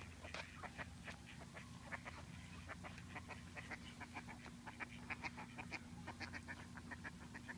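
A flock of mallard ducks giving many short, soft quacks in quick succession.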